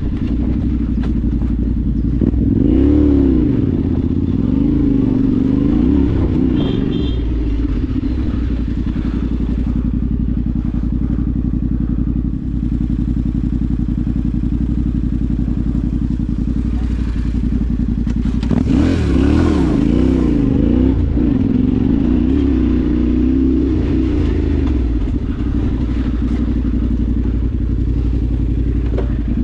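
Yamaha Ténéré 700's parallel-twin engine running steadily on the move, its revs rising and falling a few seconds in and again about two-thirds of the way through.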